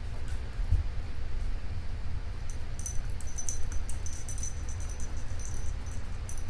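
Small metal lock parts clicking and ticking faintly as they are handled, starting a couple of seconds in, over a steady low hum.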